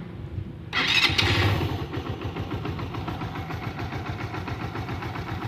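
Suzuki GN125H's single-cylinder four-stroke engine: a sudden louder, brighter burst lasting about a second, then settling into a steady, evenly pulsing idle.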